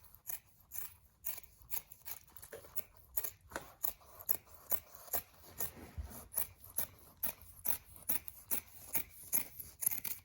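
Scissors snipping through fiberglass for a patch, a steady run of crisp cuts about two or three a second.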